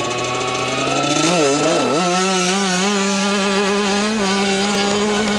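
Dirt bike engine revving up as the bike accelerates away, its pitch climbing and wavering briefly as the throttle is worked, then running steadily at high revs.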